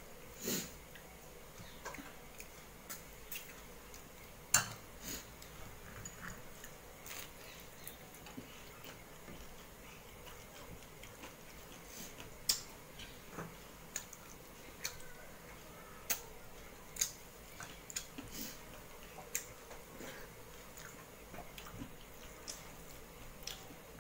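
Eating by hand: irregular soft clicks and smacks of chewing and of fingers mixing rice on a steel plate, a few of them sharper, over a low steady hiss.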